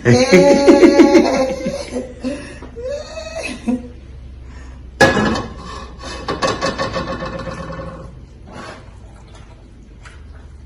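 A man's voice without clear words, and a single sharp clank of cookware about five seconds in, followed by more voice that fades out.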